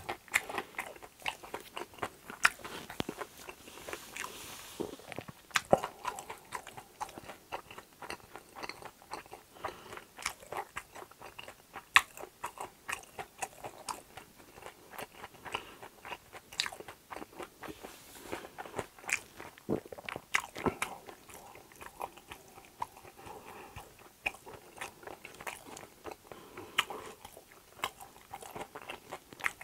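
A person chewing crunchy food close to the microphone, with many sharp, irregular crunches and bites.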